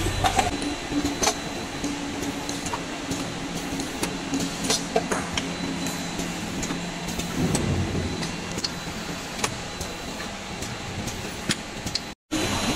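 Machinery of an automated washing-machine motor assembly line running: a steady hum and noise, with frequent sharp clicks and clacks from the working stations. The sound cuts out briefly near the end.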